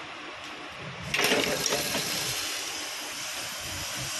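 Automatic riveting machine setting a rivet in a metal bucket lock: a sudden loud burst of noise about a second in that fades over about a second, over the machine's steady drone.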